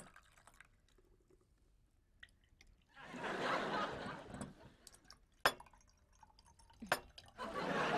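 Tea poured from a teapot into glasses in two spells, the second starting near the end, with two sharp clinks of glass or cutlery in between.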